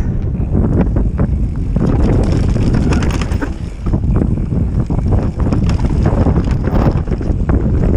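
Wind buffeting the microphone as a Capra enduro mountain bike rides fast down a rough dirt trail, with tyre noise on the dirt and frequent rattling clicks and knocks from the bike over the bumps.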